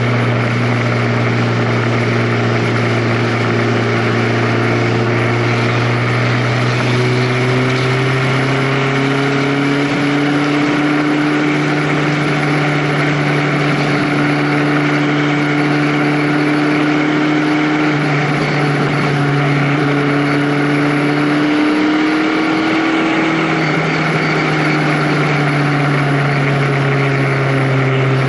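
Vehicle engine running on the move under a steady rush of wind and road noise; its pitch climbs slowly for much of the time and drops back about three quarters of the way through.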